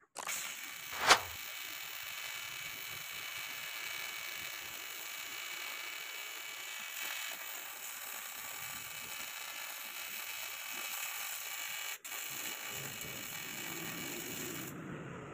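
TIG welding arc on an aluminium sprocket carrier, a steady buzzing hiss. A loud sharp crack about a second in, a brief break near twelve seconds, and the arc cuts off near the end.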